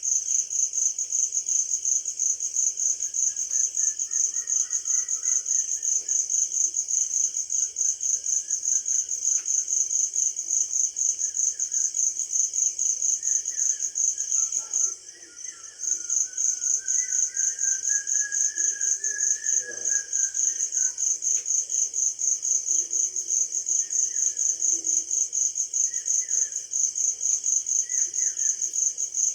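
Crickets chirping in a fast, even pulse that stops for about a second midway and then resumes, with faint bird calls underneath.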